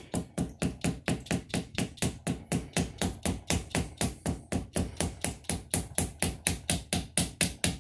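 A hammer tapping steadily on a punch, about five light strikes a second, driving a soft lead slug down a rifle's bore to measure the barrel's groove diameter.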